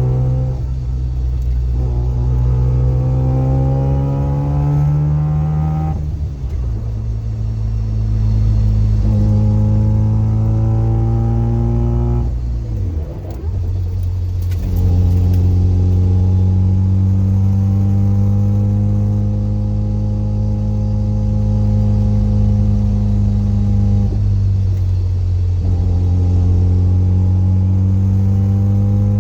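Mazda FC RX-7's rotary engine and drivetrain heard from over the differential, pulling up through the gears with the pitch climbing and dropping at each shift, then holding steady for about ten seconds. Gear whine from the differential rides along, passed into the car by solid delrin differential and subframe bushings.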